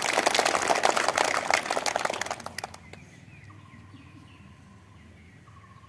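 A group of schoolchildren clapping their hands, a dense patter of claps that dies away just under three seconds in. After that it is quieter, with two faint thin high tones.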